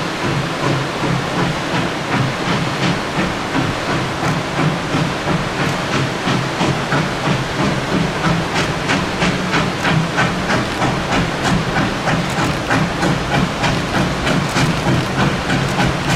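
Narrow-gauge K-36 2-8-2 steam locomotive working steam: a quick, even beat of exhaust chuffs, about three a second, over a steady hiss. The beat grows clearer after the first few seconds.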